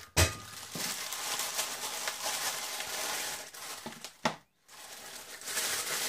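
Plastic packaging crinkling and rustling as a black polyethylene mailer bag is handled and opened and clear plastic bags of jumper wires are pulled out. A light knock comes just after the start, and the rustling stops briefly about four and a half seconds in.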